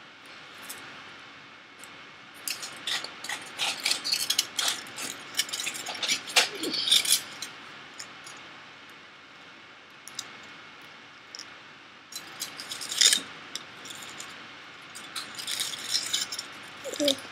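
Aluminium foil crinkling and crackling as foil nail wraps are handled and crumpled, in two spells of quick crisp crackles with a quieter stretch between.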